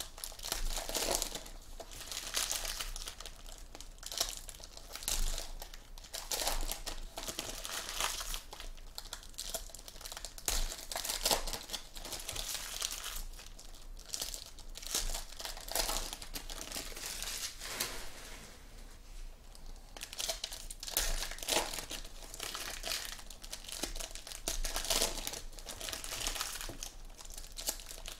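Foil trading-card pack wrappers crinkling and tearing as packs are ripped open by hand, an irregular crackling with a short lull about two-thirds of the way through.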